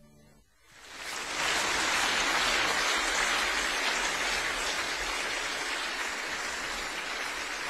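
Audience applause that swells up about a second in and then carries on steadily, slowly tapering off.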